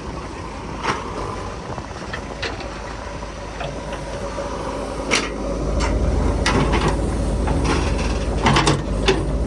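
A vehicle engine running steadily, growing louder and heavier about five and a half seconds in, with scattered sharp metallic clanks and knocks over it.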